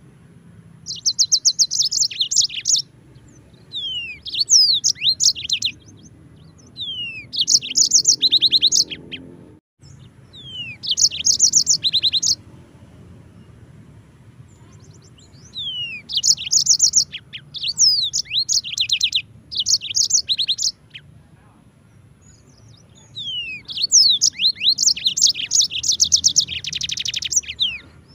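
Yellow-fronted canary (Mozambique canary) singing: phrases of fast, high trills mixed with quick down-slurred whistles, each lasting a second to a few seconds, with short pauses between them and a longer, fuller run of song near the end.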